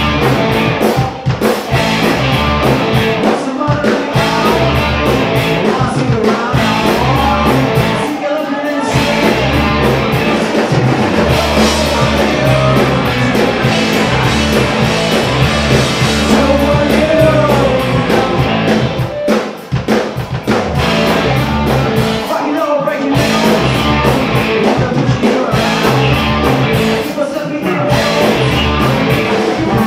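Live rock band playing loud: electric guitars, bass guitar and drum kit, with a voice singing over them. The music drops out for a few short breaks.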